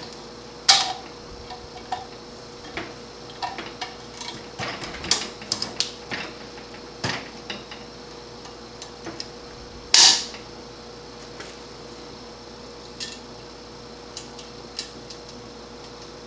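Clicks and clinks of a valve spring compressor, valve springs, retainers and keepers being worked on a Chrysler 383 cast-iron cylinder head. A flurry of small metal clicks fills the first half. Two louder, sharp ringing metallic clacks come under a second in and about ten seconds in.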